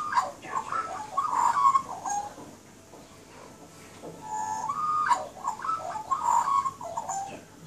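Australian magpies carolling: flute-like warbled notes that step up and down in pitch, in two bouts, the second starting about four seconds in.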